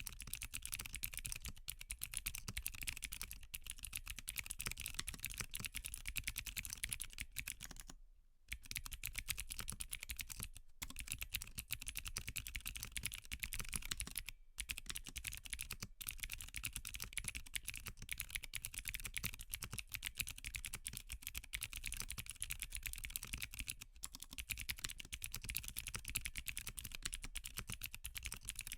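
Continuous typing on a Qwertykeys Neo80 mechanical keyboard with clicky Cherry MX2A Blue switches on an aluminium plate without foam. Dense key clicks with a couple of short pauses, about 8 and 14 seconds in.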